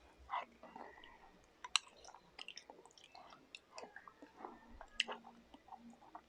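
Quiet chewing and mouth sounds of people eating soft cake and mango gulaman salad, with scattered small clicks and two sharper clicks, about two and five seconds in.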